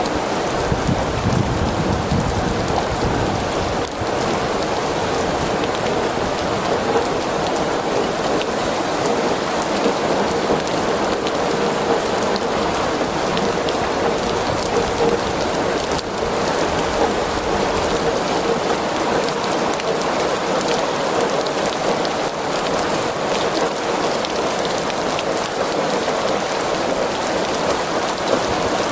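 Steady rain falling in a thunderstorm, an even hiss and patter throughout, with a low rumble of thunder that fades out over the first few seconds.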